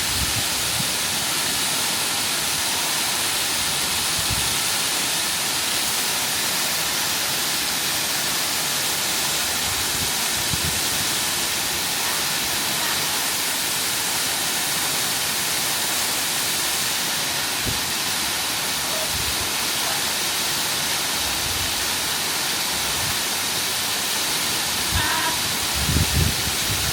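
Waterfall pouring into a pool, a steady, even rushing hiss, with a few faint low knocks and bumps near the end.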